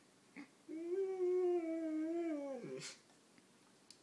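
A German Shorthaired Pointer howling at an alarm clock: a brief whine, then one long howl of about two seconds that wavers slightly and drops in pitch at the end, followed by a short breathy sound.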